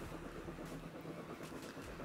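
A quiet pause: faint, steady outdoor background hiss with a couple of faint ticks.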